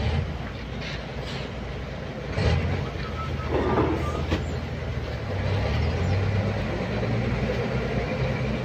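Excavator working ore on a barge: its diesel engine runs low and steady, with several metal clanks and a brief squeal about three seconds in.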